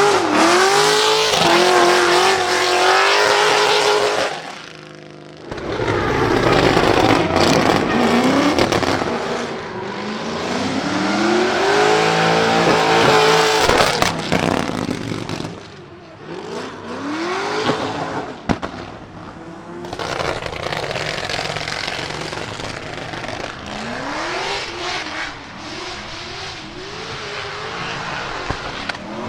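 Chevrolet LS7 V8 in a Nissan 200SX S13 pickup revving up and down hard through drifts, with tyres squealing and a few sharp exhaust crackles. The sound drops away briefly about five seconds in and again near the middle.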